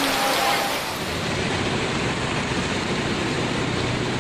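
Heavy monsoon rain pouring down with a bright hiss. About a second in it gives way to the lower, steady rush of a swollen river in flood.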